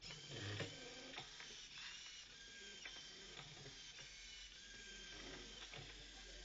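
Gioblu Arduino robot's small geared wheel motors whirring faintly as it drives and turns, the motor whine dipping and recovering in pitch several times as it changes speed or direction, with a few clicks.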